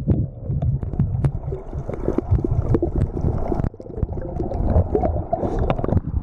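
Muffled underwater rumble and gurgling of water moving around a submerged camera, with many short clicks and knocks from swimmers splashing nearby.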